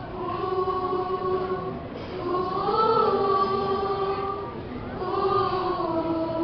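A group of young voices singing together in long held notes, in three phrases with short breaks between them.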